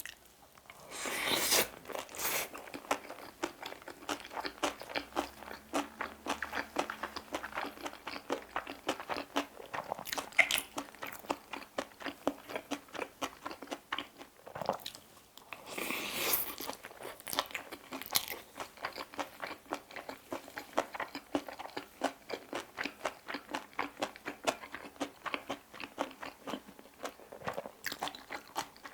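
Close-miked chewing of bibimbap with seasoned vegetables: rapid, wet crunching clicks, several a second, with two louder bursts, about a second and a half in and just past the middle.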